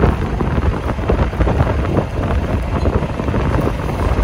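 Strong gusty wind buffeting the microphone, with the curtainsider trailer's curtain sides flapping and rattling in the gusts.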